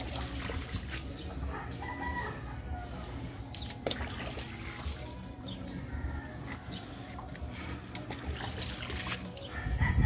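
A rooster crowing about two seconds in, over steady low background noise, with a brief louder thump right at the end.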